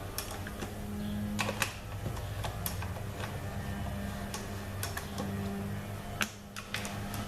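Scattered sharp metallic clicks and taps from hand tools at work on the pan bolts of a ZF 6HP26 transmission's oil pan, over a steady low hum.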